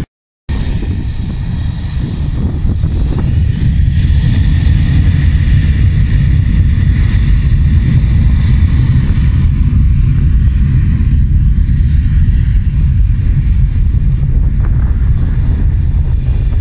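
Airliner engines running loud and close, a heavy steady rumble with a faint whine that rises over the first few seconds. It starts abruptly about half a second in.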